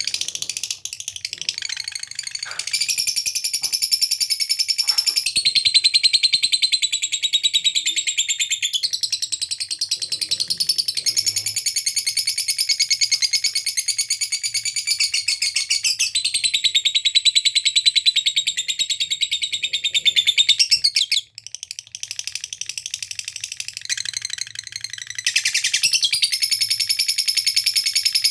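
Lovebird ngekek: a long, very rapid high-pitched trilling chatter that runs on in long unbroken stretches with a few brief breaks. This is the sustained rattling call that lovebird keepers prize and play to provoke other lovebirds into answering.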